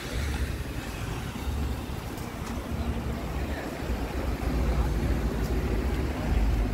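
Outdoor seafront street ambience: a low, steady rumble of passing road traffic under a general noisy haze, with faint voices of passers-by.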